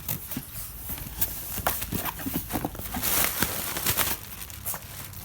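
Cardboard shipping box being torn and pawed open: a run of irregular scratches, rips and sharp knocks.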